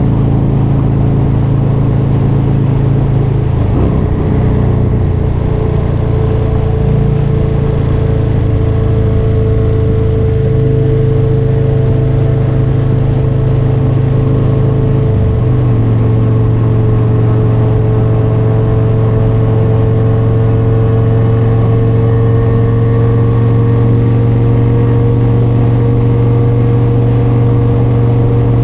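Motorcycle engine running at a steady cruise, with a steady rush of noise over it. The engine note wavers about four seconds in and drops a little about halfway through.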